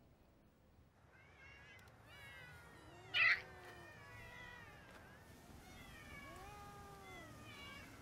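Several cats meowing, their calls overlapping at different pitches, with one short, louder harsh cry about three seconds in.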